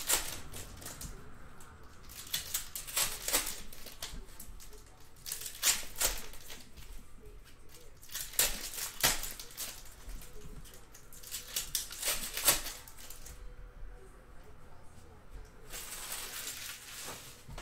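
Foil football card packs being torn open and their wrappers crinkled, in short spells of crackling every few seconds.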